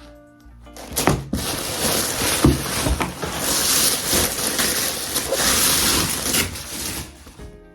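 Packaging rustling and crinkling loudly for about six seconds as new shoes are unwrapped, with a few knocks near the start.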